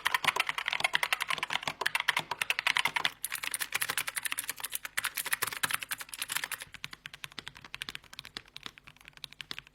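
Fast, continuous typing on computer keyboards, a dense run of key clicks. The clicks change in character about three seconds in and turn quieter near seven seconds.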